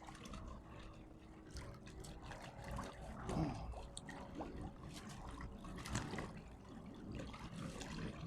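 Water trickling and splashing, with a few short louder splashes or knocks.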